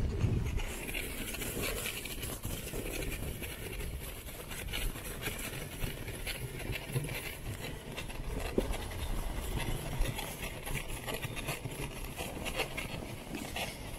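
Sled runners sliding fast over packed snow on a downhill run: a continuous rushing scrape with a low rumble of wind on the microphone and many small rattling knocks from bumps in the track.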